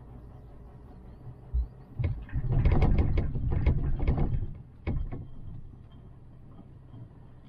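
Chairlift running, with a burst of clattering clicks and knocks over a low rumble lasting about three seconds in the middle, set off by two thumps and ending in a last knock.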